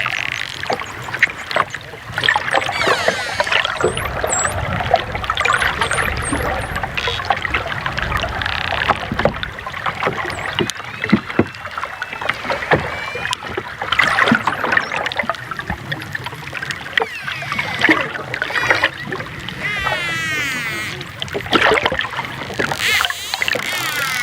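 Dolphins underwater: several overlapping whistles that sweep up and down in pitch, clearest near the end, mixed with sharp clicks and a steady rush of water noise.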